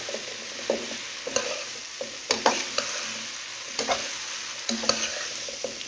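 Breadfruit and seasoning sizzling in hot oil in a pot, with a utensil stirring and scraping against the pot in several sharp knocks.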